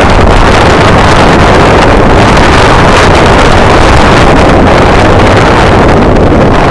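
Motorcycle riding at road speed: heavy wind rush buffeting an action camera mounted low on the bike, over a steady low engine drone.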